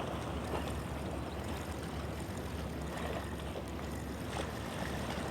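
Steady outdoor wind and water noise: wind rumbling on the microphone with sea water washing along the shore.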